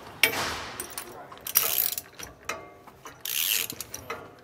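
Hand ratchet and 3/4-inch socket clicking in three short bursts as a steering-stabilizer bracket bolt is snugged down, with a wrench holding the other end. A few light metal clinks come between the strokes.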